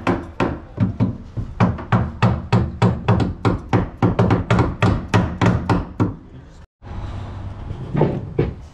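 A plastic mallet tapping a saildrive down into its mounting ring: a quick, even run of knocks, about three a second, for some six seconds, then stopping. The taps persuade the saildrive into a ring that is binding on both sides.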